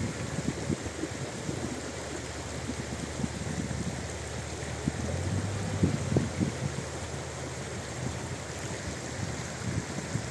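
Shallow stream babbling over stones, with the low running of a Bucher Duro 6x6 expedition truck's diesel engine underneath as the truck drives through the stream bed; the engine swells briefly about halfway through.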